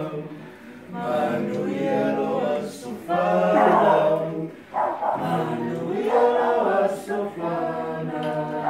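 A group of people singing a birthday song together unaccompanied, in held phrases with short breaks between them.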